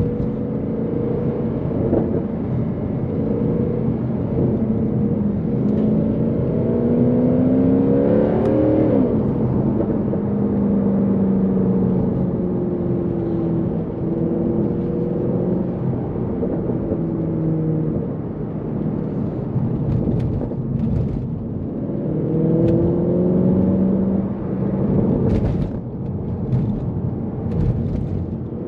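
2012 Mercedes-Benz C63 AMG's naturally aspirated 6.2-litre M156 V8 under hard driving. The engine note climbs through the revs to a sudden drop at a gear change about eight or nine seconds in, runs steady, then climbs again later. Several sharp clicks or knocks come near the end.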